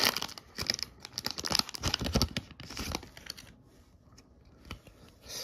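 Foil wrapper of a Pokémon booster pack being torn open and crinkled: a quick run of rips and rustles for about the first three seconds, then a few soft handling sounds.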